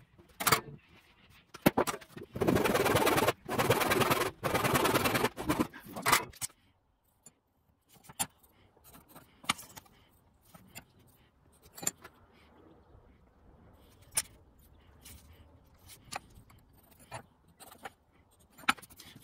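Three long strokes of a hand saw cutting through an oak board a few seconds in. After that, sparse light clicks and taps of a steel rule and square set down on the wood over faint pencil scratching.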